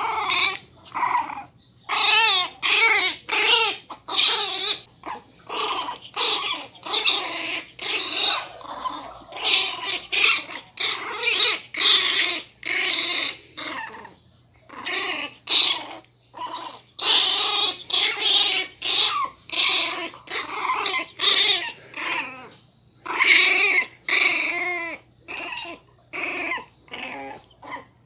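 Miniature pinscher puppies play-growling and yapping while tugging at a toy: a long run of short, high-pitched growls and yaps, one after another with brief pauses.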